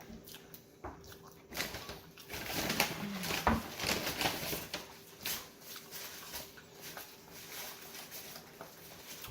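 Close-miked eating sounds: chewing, smacking and crinkling, loudest in the first half, with a brief low hum about three seconds in.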